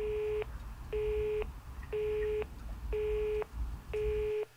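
Telephone busy tone in the Italian cadence: a single steady beep about half a second long, repeated once a second, five times, the sign that the line has gone dead after the call. A low background rumble runs under it and drops out near the end.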